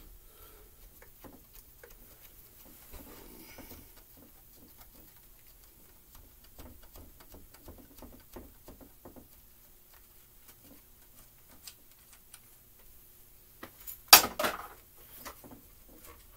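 Faint handling noise and small clicks as a McCulloch Mini Mac 30 chainsaw is worked apart by hand on a workbench. A short, sharp metallic clatter about fourteen seconds in is the loudest sound.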